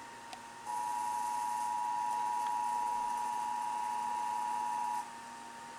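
Emergency Alert System attention signal: two steady tones sounding together, starting about a second in and cutting off suddenly about four seconds later, the signal that an emergency alert broadcast follows. A faint steady hum sits underneath.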